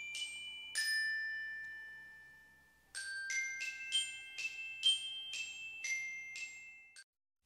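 Outro music jingle of bell-like chiming notes. Two notes ring out and fade near the start, then after a pause a quick run of about ten notes plays and stops shortly before the end.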